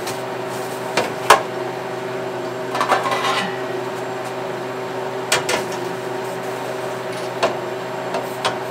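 Metal trays of lemon balm clinking and scraping as they are slid onto the shelves of a Harvest Right home freeze dryer. There are sharp clanks about a second in, a scraping slide around three seconds, and more knocks around five and seven to eight seconds, all over a steady hum.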